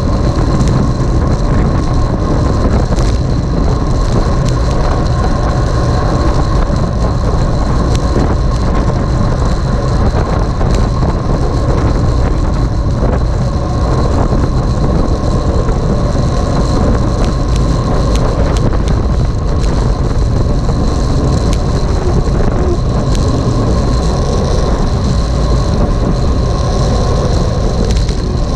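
Loud, steady wind and road noise on a moving camera's microphone, strongest at the low end, with faint steady high whines running under it.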